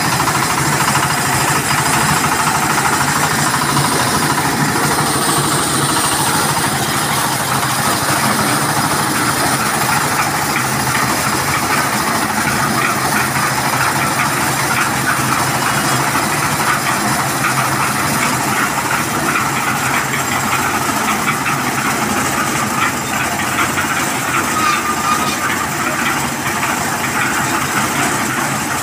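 Kirloskar 15 HP single-cylinder diesel engine running steadily, driving a concrete mixer through a belt and pulley.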